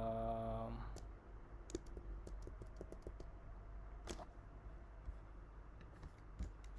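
Computer keyboard typing: scattered, irregular keystrokes. A held hum of a man's voice at the start trails off within the first second.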